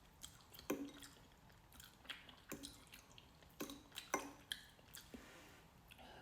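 A person chewing a mouthful of cheesy pasta, with faint wet smacks and mouth clicks at uneven intervals, the clearest about a second in and around four seconds in.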